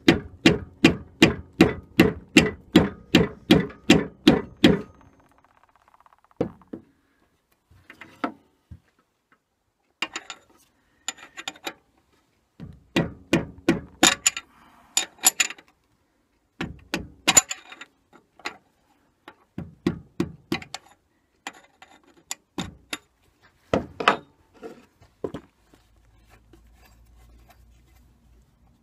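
A mallet striking a brass drift rod held against the locking ring on a Record CL4 lathe spindle, tapping the ring round to loosen it. A fast, even run of sharp taps, about four a second, lasts about five seconds. Irregular groups of taps follow.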